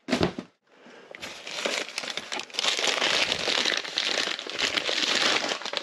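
A short knock, then crumpled paper crinkling and rustling steadily as gloved hands handle and unwrap a paper-wrapped bundle.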